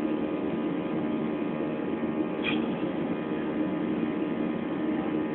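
Steady cabin drone of a Ryanair Boeing 737-800 airliner in flight: engine and airflow noise with a steady hum. A brief faint click sounds about two and a half seconds in.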